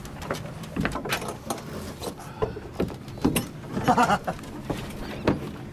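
Irregular knocks and clicks, with a short muffled voice about four seconds in.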